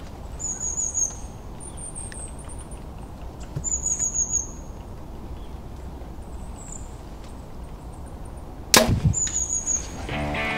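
A compound bow shot about nine seconds in: one sharp crack of the bow firing and the arrow hitting the whitetail buck. Before it, small birds chirp in short high trills, twice, over a low outdoor rumble, and music comes in near the end.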